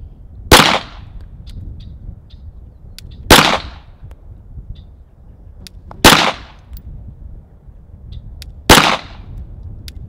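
Four single pistol shots, evenly spaced about two and a half seconds apart, each a sharp crack with a short ring-off.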